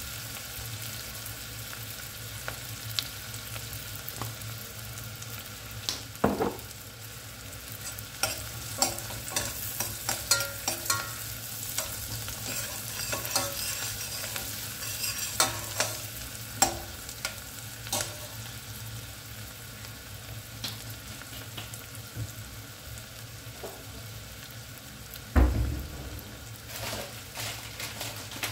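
Chopped onions sizzling in oil in a metal saucepan while a metal spoon stirs them, scraping and clinking against the pot in short clusters. Near the end one louder thump.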